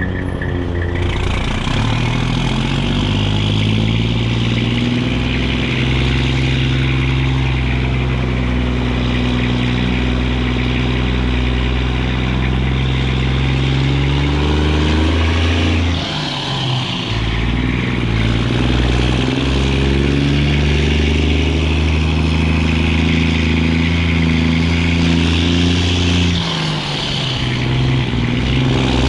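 Straight-piped Detroit Diesel Series 60 inline-six in a Kenworth tractor hauling a loaded lowboy, exhaust note pulling and rising under throttle. It drops away briefly about halfway through and again near the end, then picks back up.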